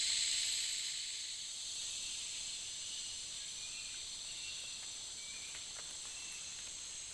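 Insect chorus: a steady, shrill buzzing in several high pitch bands, a little louder in the first second, with a few faint short chirps midway.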